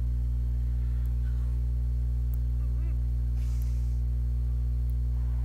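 A steady low electrical hum, with a faint sob about three seconds in and a soft sniff just after, from an animated character crying.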